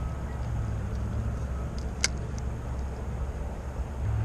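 Steady low rumble of distant construction machinery, with one sharp click about two seconds in.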